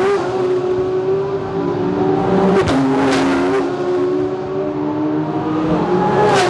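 IMSA race cars running at speed past the spectator, their engines held at high revs. The engine note drops abruptly in pitch about two and a half seconds in and again near the end, with the whoosh of cars going by. The engines make a "meow, meow" sound.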